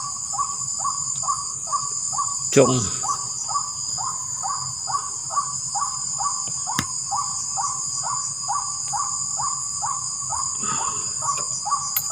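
White-breasted waterhen (keruak) call: a short falling croak repeated evenly about two and a half times a second, which the angler takes for someone luring the birds in. A steady high drone of night insects runs beneath it.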